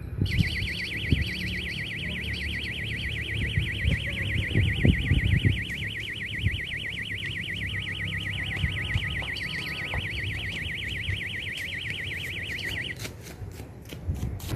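An electronic alarm tone warbling up and down several times a second, held steadily for about thirteen seconds before cutting off suddenly. A few sharp clicks follow near the end, and a low rumble runs underneath.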